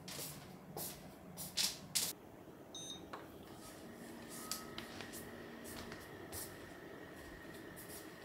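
Light knocks and clinks of a glass on a wooden table, a few sharp taps over about two seconds. Then a short electronic beep, followed by a faint steady high-pitched tone.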